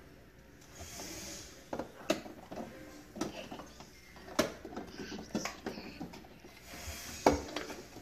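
Scattered clicks and light knocks of plastic parts being fitted and snapped into place inside a refrigerator compartment, with three sharper clicks spread through.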